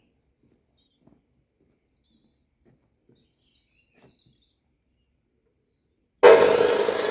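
Faint birds chirping over near silence, with a few faint knocks. About six seconds in, a loud, steady machine hum starts abruptly.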